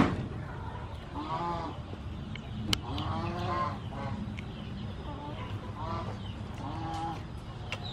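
Domestic fowl calling in a series of short, arched calls, about one a second, with a sharp knock right at the start.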